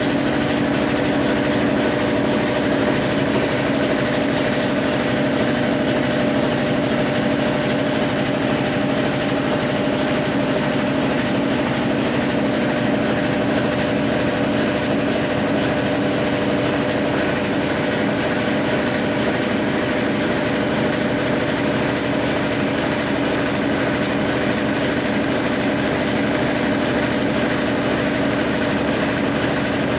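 Top-load washing machine running steadily with its motor humming at a constant pitch, with no pauses.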